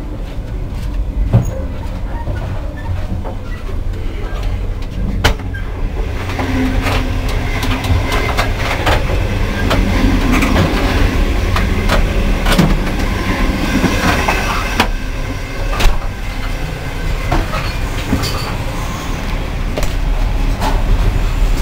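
Indian Pacific passenger train in motion, heard from inside the carriages: a steady low rumble with scattered clicks and knocks. The running noise grows louder and hissier from about six seconds in until about sixteen seconds, then eases back.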